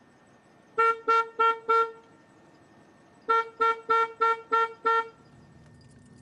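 Car horn honked in short toots: four quick ones, a pause of about a second, then six more, to move a donkey standing in the road.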